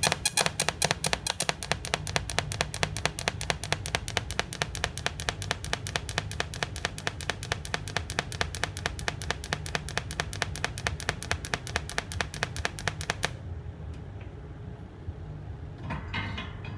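TIG welder running through a pulse-generator box, pulsing in an even rhythm of about six sharp clicks a second over a steady low hum. The pulsing stops about 13 seconds in, and a short burst of noise follows near the end.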